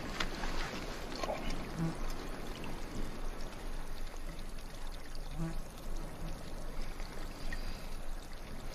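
Water trickling and splashing at a mound spring's waterhole, an artesian spring rising through a salty pool.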